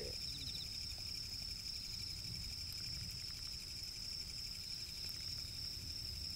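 Night insects trilling steadily at one high pitch, with a faint low rumble and a few soft ticks beneath.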